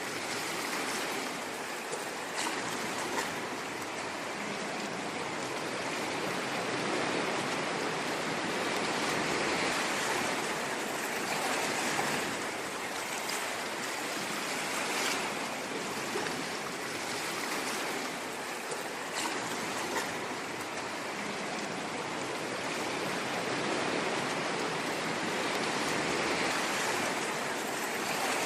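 Ocean waves washing on a shore, a continuous rush of surf that swells and eases gently every few seconds, with small splashes here and there.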